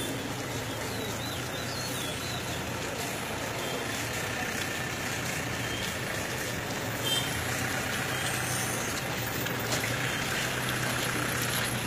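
Steady street noise with a motor vehicle's engine running at a constant low hum, and a brief knock about seven seconds in.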